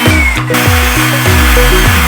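Background music with a steady, bass-heavy beat, about two low notes a second, each dropping in pitch.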